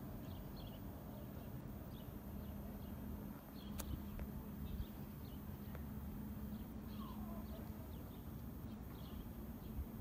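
Outdoor ambience: a steady low hum and rumble, with short high chirps of small birds repeating throughout and a single sharp tap about four seconds in.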